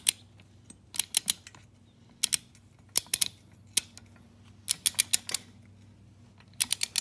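Ratchet wrench clicking in short runs of a few quick clicks, stroke after stroke, as exhaust bolts on a motorized bike engine are tightened.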